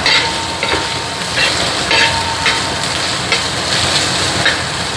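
Ingredients sizzling in hot coconut oil in a pan, with the steady hiss of frying broken by repeated short scrapes of a spoon stirring them.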